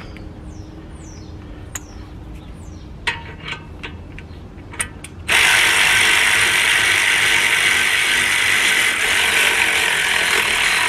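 A 12-volt cordless 3/8-inch ratchet wrench runs steadily from about five seconds in, driving home the brake caliper mounting bolts. A few light clicks come before it.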